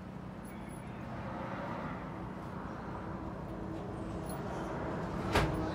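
Detroit Series 40 8.7-litre inline-six diesel engine of a heavy rescue fire truck idling steadily, heard from underneath the truck and growing slightly louder, with one sharp knock near the end.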